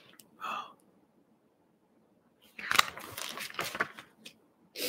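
Paper pages of a picture book being turned by hand: a crisp rustle with a few sharp clicks lasting about a second and a half, starting a little past halfway. A brief soft sound comes about half a second in and again just before the end.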